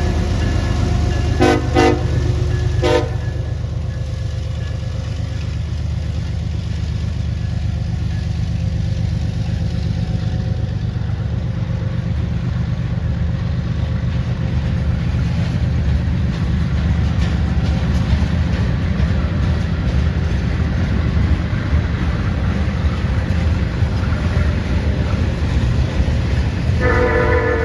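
A long freight train rolling past with a steady low rumble. A locomotive horn gives three short toots in the first few seconds, and a multi-note horn comes on again near the end.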